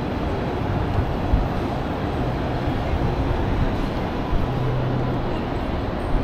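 City street ambience picked up by a body-worn action camera's microphone while walking: a steady low rumble of background noise, with a low hum that comes and goes and a few soft knocks.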